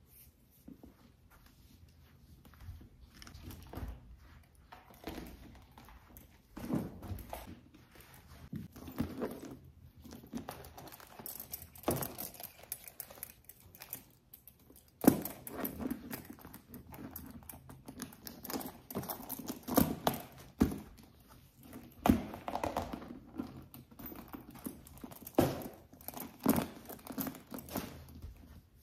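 A Coach signature canvas satchel being handled: rustling of the canvas and leather with scattered clicks and knocks of its metal clips and hardware as a small case charm is clipped onto the strap. A few sharper knocks stand out about halfway through and later.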